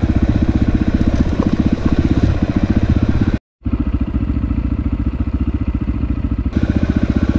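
Dirt bike engine running steadily as the bike rides a rocky trail, with a rapid, even pulse. It cuts out for an instant about halfway through, then carries on slightly duller.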